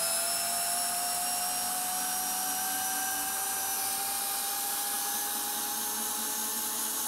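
Bosch 12-volt drill/driver running in reverse in low gear, steadily backing a long TimberLOK screw out of a wood stump; it needs speed one to pull this screw out. The motor whine is steady and rises slightly in pitch over the run.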